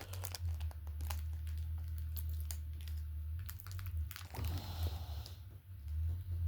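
Small plastic clicks and light handling noise from a belt-loop clip being fiddled with and tugged, over a steady low hum.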